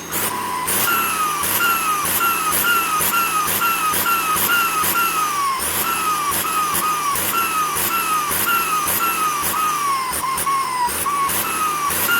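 Holset HX35 turbocharger on a running diesel whistling in quick repeated pulses, about two or three a second: each a sharp rise then a falling whistle, over the engine's rhythmic rise and fall in revs.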